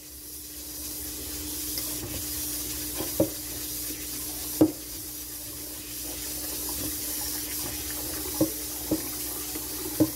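Rice being swished and washed by hand in a metal pot at the sink, with a few light knocks of hand against pot, over a steady hiss from a pressure cooker building pressure on the stove.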